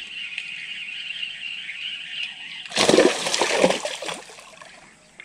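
A steady high insect buzz, then about three seconds in a burst of water splashing lasting over a second, which fades near the end.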